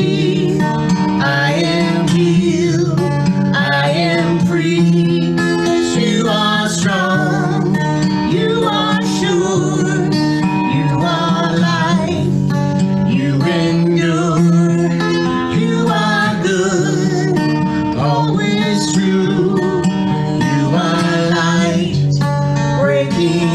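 A woman and a man singing together to a Takamine acoustic guitar, the guitar holding chords under their melody.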